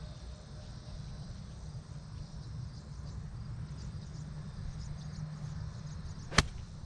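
An 8-iron striking a golf ball out of the rough: one sharp crack of club on ball near the end, over a steady low wind rumble on the microphone and faint insect chirping.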